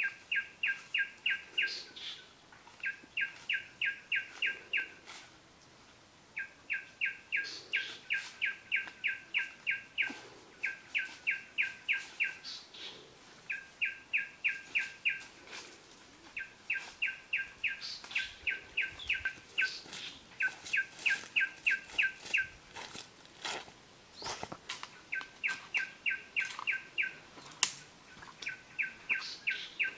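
A bird calling in rapid runs of short, even notes, about four to five a second, each run lasting a few seconds with brief pauses between. Now and then there is a faint rustle or snap from the leaf litter.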